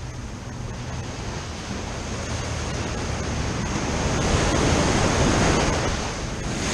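Ocean surf washing in against a rock seawall, a steady rush that swells to its loudest about four to five seconds in, then eases.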